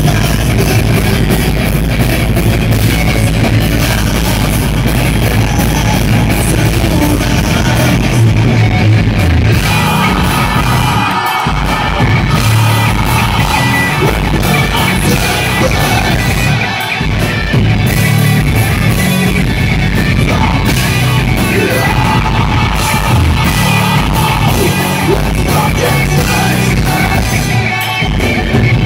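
Live rock band playing loudly: two distorted electric guitars, bass guitar and a drum kit, with a vocalist singing into the microphone. The low end drops out for an instant about 11 and 17 seconds in.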